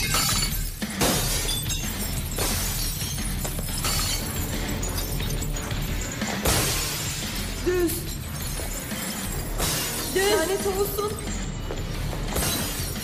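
Glass jars smashing one after another, several loud crashes a second or more apart, over a tense film score. There are a couple of short cries partway through.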